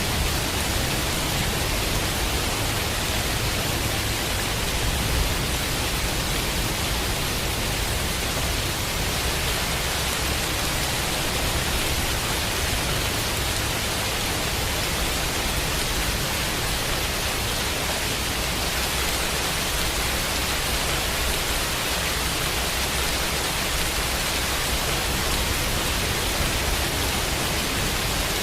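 Steady rain with a white-noise hiss mixed in, and a low rumble underneath. The sound is unchanging, with no thunder claps or separate drops standing out.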